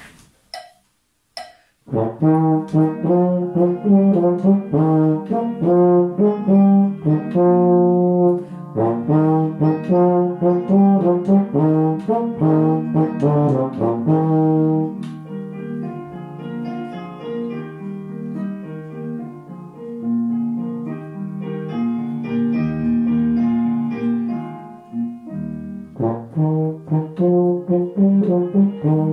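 Rotary-valve tenor horn playing a solo melody, starting about two seconds in: quick detached repeated notes first, then longer held notes in the second half, with a brief breath pause near the end before it goes on.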